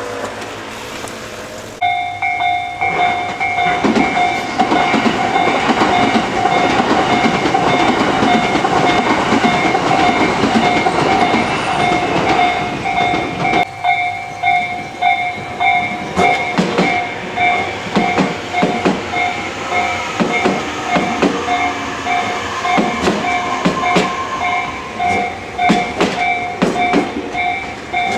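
Level-crossing alarm bell ringing in a fast, steady pulse, starting about two seconds in. A Tobu train passes with a rush of wheel and track noise, and in the second half the wheels clack over the rail joints.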